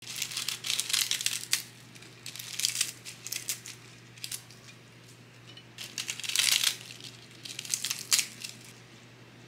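Crisp iceberg lettuce leaves being torn apart by hand, a crackling snap of the leaves coming in about five separate bursts.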